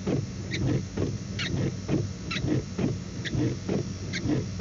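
Car windshield wipers sweeping back and forth on wet glass, with a short squeak about once a second, over the steady hum of the car's idling engine.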